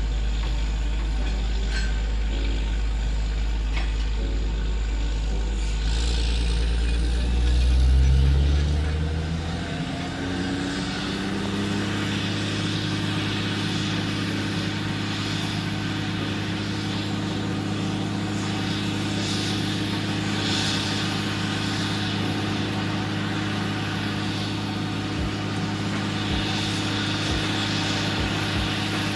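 Borehole drilling rig's engine running under load. Its pitch climbs as it speeds up, from about six to ten seconds in, then holds steady at the higher speed while the rig drills down through the dirt.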